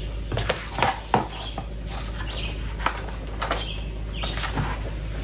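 A hardcover picture book being opened and its pages handled, with a few sharp rustles and taps in the first second or so. Birds chirp now and then in the background.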